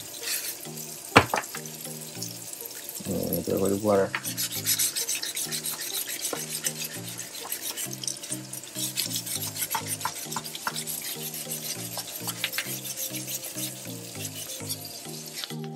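Repeated short rubbing strokes of 800-grit wet sandpaper against the plaster base of a dental stone cast, smoothing it to a shine, with a sharp click about a second in. Background music plays throughout.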